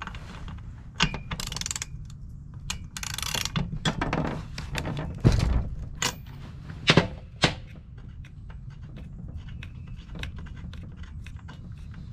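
Hand tools working on a Husqvarna 55 Rancher chainsaw: metal clicks and ratcheting, short scraping bursts and a few sharp knocks around the middle, as the spark plug is unscrewed from the cylinder.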